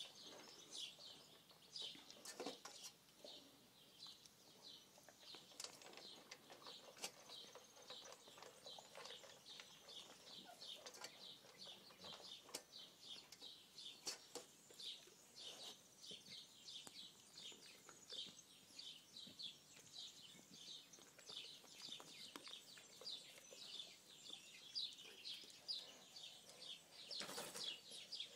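Faint, high chirping repeated about three times a second, typical of small birds calling, with scattered soft clicks.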